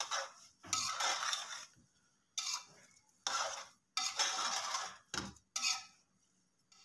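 Metal spoon scraping and stirring a thick mass of grated carrots in a large aluminium pot, about seven irregular scrapes against the pot's side and base. The carrots are being fried with sugar and oil (bhunai), stirred hard until the oil separates.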